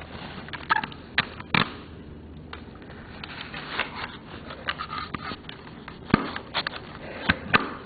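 Scattered clicks and knocks of small parts being handled at an RC truck's wheel and axle as a part is popped off.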